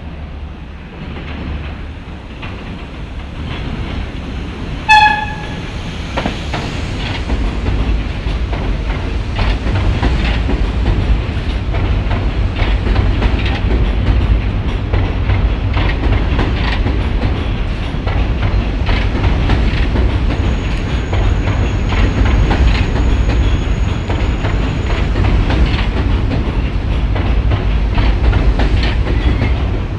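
R42 subway train on an elevated line sounds one short horn blast about five seconds in, the loudest moment. It then rolls into the station alongside with a heavy rumble and wheels clacking over the rail joints.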